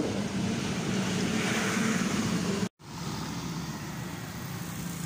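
Steady street traffic and riding noise heard from a moving bicycle: a motor vehicle's low engine hum over road and wind noise. The sound drops out completely for an instant about halfway through.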